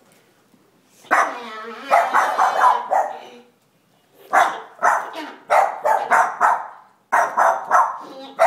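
Boston terriers barking in alarm, afraid of a person dressed as Santa. The barking starts about a second in, with drawn-out, pitched barks first. After a brief pause comes a rapid run of short, sharp barks, about three a second.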